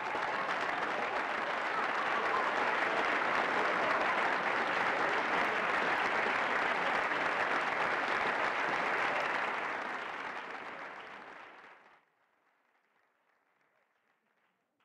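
Audience applauding, an even clapping that fades out near the end into near silence.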